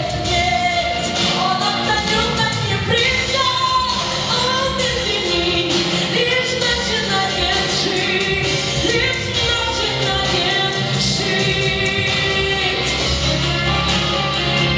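A girl singing a song solo over a pop-rock band accompaniment.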